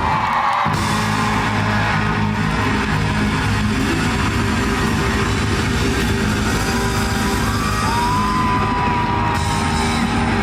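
Rock band playing live: loud amplified music with electric guitar.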